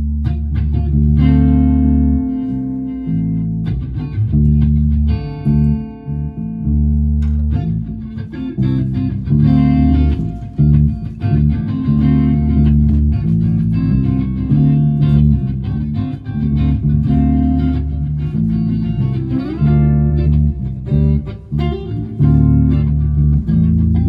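Electric guitar played through a Korg AX1G multi-effects unit and FoxGear Tweed 55 amp into a 4x12 cabinet, for a tone test, with a bass guitar underneath. Chords ring out for the first several seconds, then the playing gets busier from about eight seconds in.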